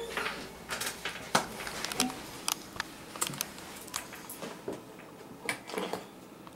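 Computer keyboard and mouse clicking: irregular sharp taps, two or three a second, with short gaps between them.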